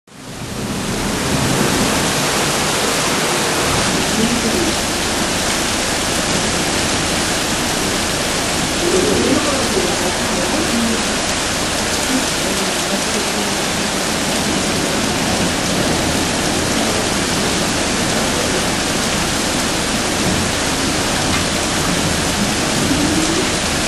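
Steady, heavy rain: a dense even hiss that fades in over the first second or so and then holds, with faint wavering tones underneath.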